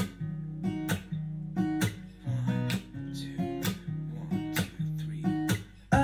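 Acoustic guitar chords strummed in a steady rhythm, the intro of a pop song played back through an LG PK7W XBOOM Go Bluetooth speaker with its Clear Vocal and Enhanced Bass settings on, recorded with binaural microphones.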